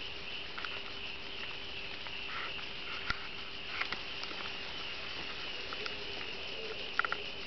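Steady high-pitched chirring of night insects, with a faint steady hum beneath and a few scattered sharp clicks and pops, several of them near the end.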